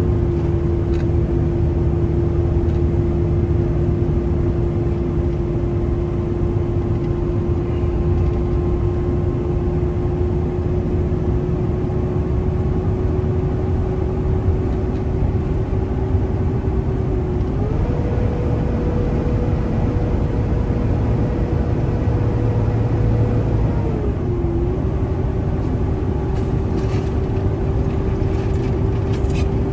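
Truck driving down the road, heard as steady road and engine rumble with a constant drone. Just past halfway the drone rises in pitch, holds for several seconds, then drops back to its earlier note.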